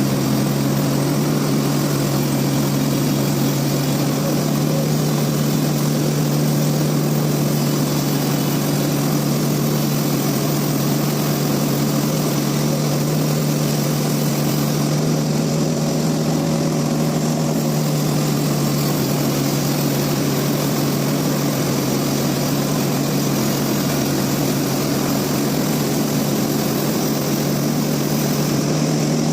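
Sawmill machinery running steadily: a constant, even hum at one pitch with a hiss over it.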